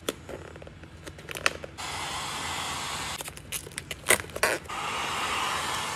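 Heat gun blowing in two stretches, about two seconds in and again near the end, with scattered crinkling and crackling of vinyl wrap film being pressed and stretched over a car mirror.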